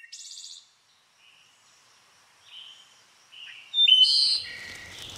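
Forest birds calling: a short buzzy trill at the start, then scattered whistled chirps, the loudest about four seconds in, when a faint hiss of outdoor ambience comes in.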